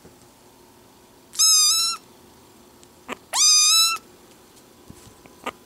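Tiny kitten meowing loudly for its dinner: two high-pitched meows about two seconds apart, each about half a second long, with a third just beginning at the very end.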